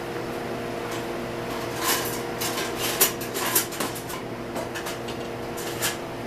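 Dishes and utensils knocking and clattering on a stainless steel counter as a plate is set down, a cluster of sharp knocks about two to four seconds in and another near the end. A steady hum of kitchen equipment runs underneath.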